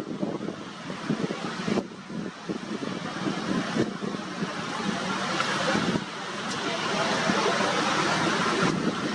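Engine noise with a rushing hiss that grows louder and steadier over the last few seconds.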